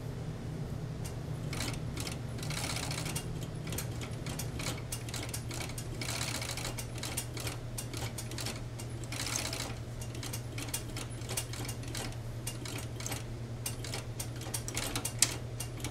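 Fur overedge sewing machine being handled and adjusted, not sewing: irregular small metal clicks and a few short rustling stretches over a steady low hum.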